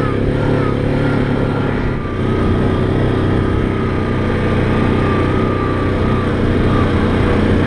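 Yamaha Grizzly 700 ATV's single-cylinder engine running steadily under way, with a thin, wavering high whine above the engine note and a brief dip in level about two seconds in.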